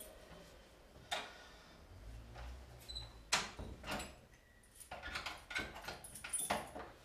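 A wooden door and cabinet being handled: a series of separate knocks and clicks with a few short squeaks, bunched together in the last couple of seconds.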